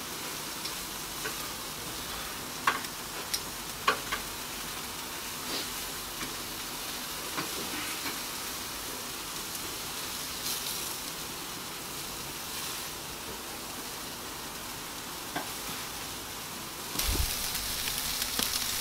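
Mutton pieces sizzling on a hot charcoal grill, with a few sharp clicks of metal tongs against the grate as the meat is turned. The sizzle grows louder near the end.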